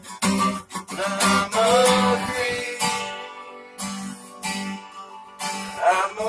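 Acoustic guitar strummed in chords, with a man's voice holding a long sung note over it partway through.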